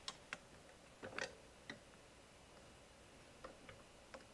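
Faint, irregular clicks and light knocks, about seven in four seconds, from the recliner's plastic mechanism parts being handled against the metal actuator. They are being jiggled into line so one pin can join the drive toggle connector, motor clevis mount and actuator.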